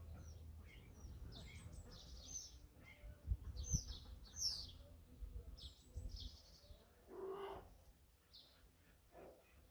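Small songbirds chirping and trilling in short high phrases, with a lower call about seven seconds in. Two brief low thumps a little over three seconds in are the loudest moments.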